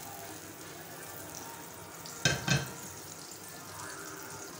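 Butter melting and sizzling in a nonstick kadai over a gas flame, a steady soft crackle of frying. Just over two seconds in come two sharp knocks, a quarter of a second apart.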